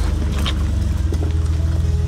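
Jeep Wrangler's engine running low and steady as it crawls over boulders, with background music over it.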